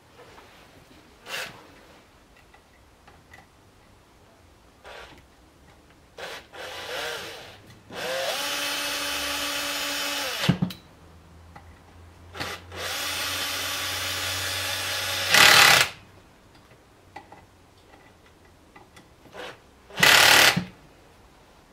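Cordless drill-driver driving screws into a metal housing: two runs of about two and a half seconds each that spin up quickly and then hold a steady whine, with shorter bursts and clicks between, and two brief, louder noisy bursts near the end.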